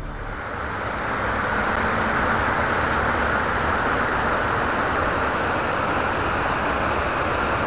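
Water rushing steadily over a stepped river weir, a continuous rush that grows louder over the first second or two and then holds even.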